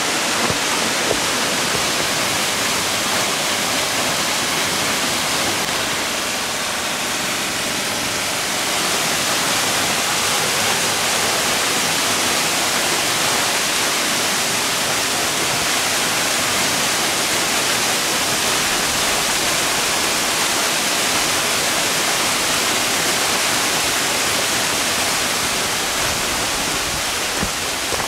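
Yeogung Falls, a mountain waterfall, pouring with a steady, loud rush of water. It is running high, which the hiker puts down to rain up to the day before.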